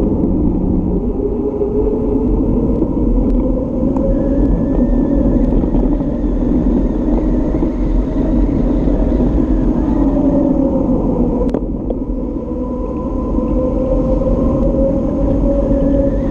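Wind rumbling over the microphone of a handlebar-mounted camera, mixed with tyre noise from a bicycle rolling fast on asphalt; the rumble is steady and loud, with a single light click near the middle.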